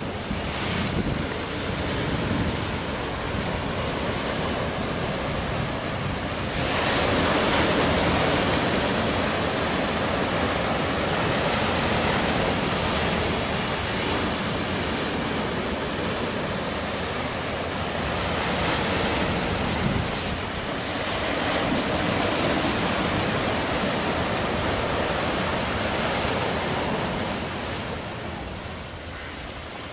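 Sea surf breaking against a rocky shore: a steady rush of water that swells louder and eases every few seconds.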